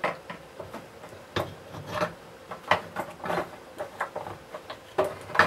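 Short, irregular plastic knocks, clicks and scrapes as the motor of a Hoover Junior 1346A upright vacuum cleaner is worked down into its plastic motor housing. The motor's parts rub and bump against the housing walls as it is fitted into place.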